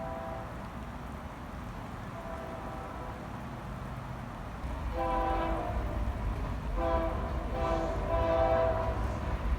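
Train horn sounding several notes at once: faint at first, then louder blasts in the second half, over the low rumble of a passing train.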